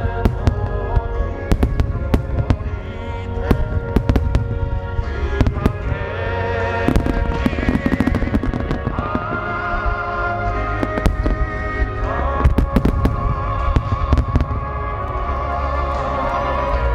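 A grand starmine fireworks barrage with 10-go (about 30 cm) aerial shells: dense, irregular bursts and crackles one after another, over a constant low rumble of booms. Music with a wavering sustained melody plays beneath the explosions.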